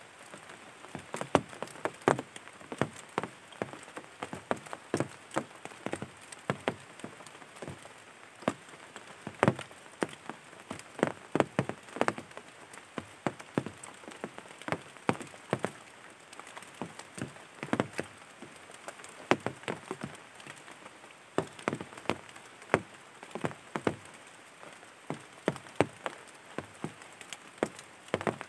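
Rain falling: irregular sharp drop hits, several a second, over a faint hiss.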